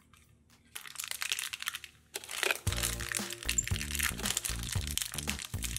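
Crinkling and crackling of a thin plastic wrapper being pulled open by hand around a small toy figure. Upbeat background music with a low bass line comes in about halfway through.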